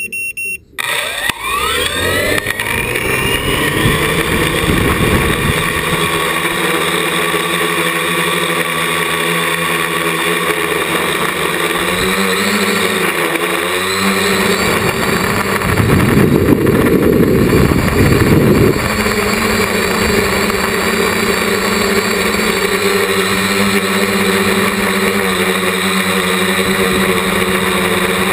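Parallax ELEV-8 quadcopter's brushless motors and propellers, heard from a camera mounted on the frame. A short electronic beep comes first. Then the motors spin up with a rising whine and settle into a loud, steady buzz as the craft lifts off and climbs, with a louder rushing stretch of a couple of seconds past the middle.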